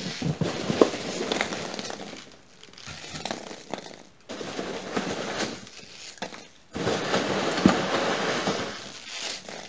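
Packing tape and cardboard flaps of a shipping box being torn and pulled open by hand, a rough rustling and ripping in several stretches with short pauses between.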